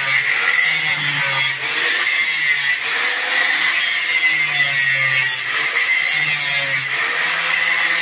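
Steel being worked by hand in a welder's repair of a snow-blade frame: a continuous rasping, scraping sound of metal being sawn or filed.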